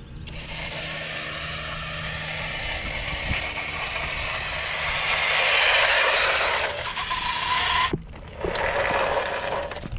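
RC Ducati motorcycle's motor and gears whirring, with its tyres on rough concrete. The sound grows louder toward the middle and cuts off abruptly about eight seconds in, then comes back briefly near the end.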